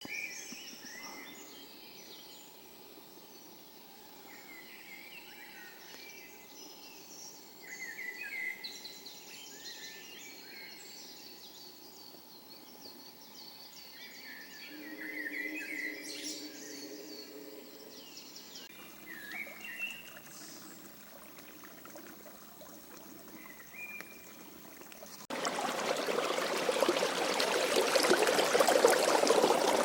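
Wild birds singing and chirping in woodland, with a brief low hum about halfway through. About 25 seconds in the sound cuts abruptly to a loud, rushing stream.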